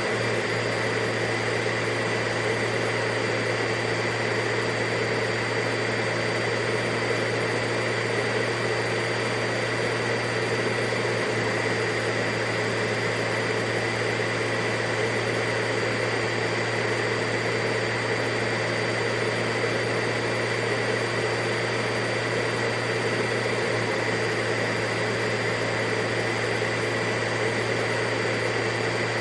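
Vacuum cleaner running steadily: a constant rushing noise with a low hum and a high whine, never changing in pitch or loudness.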